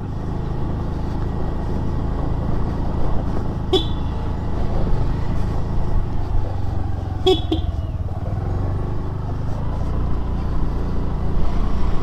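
A 2021 Honda Dio's 110 cc single-cylinder four-stroke scooter engine runs steadily while riding, with road noise. There are two short, higher-pitched sounds, one about four seconds in and a quick pair about seven seconds in.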